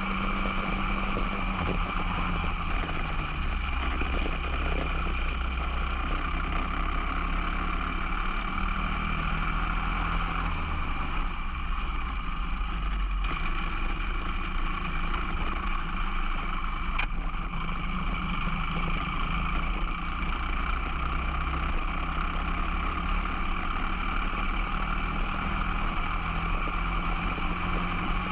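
Onboard sound of a Briggs & Stratton 206 single-cylinder four-stroke kart engine running at racing speed, its note stepping down and back up several times as the kart slows for corners and accelerates out of them.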